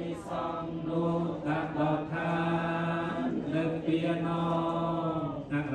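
Buddhist monk chanting a New Year blessing into a microphone, in a steady monotone that holds long notes on one low pitch, with brief breaks between phrases.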